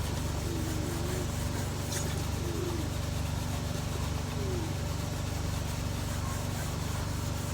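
A motor vehicle's engine running steadily: an even, low drone with no change in pitch.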